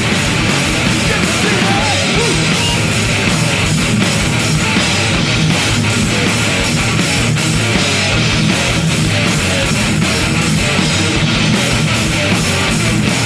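A heavy band playing live and loud: distorted electric guitar over steadily pounding drums, a dense, unbroken wall of sound.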